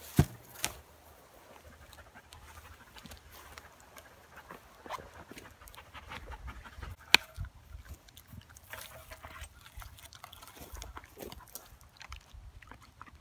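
Golden retriever moving about and panting close by, with low rustling throughout. Two sharp knocks come right at the start and a louder one about seven seconds in.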